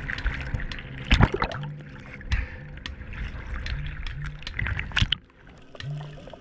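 Water sounds, trickling and sloshing, with many scattered sharp clicks and pops, under background music with a repeating low bass note. The sound drops off briefly a little after five seconds in.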